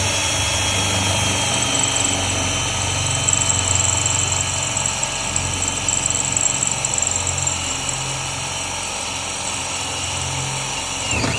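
Electric drill with a 3/16-inch cobalt bit drilling out the head of a solid rivet. It runs steadily for about eleven seconds with a high whine that sags slightly in pitch as it goes, then stops suddenly at the very end.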